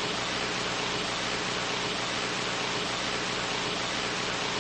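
Steady radio static: an even hiss with a faint low hum underneath.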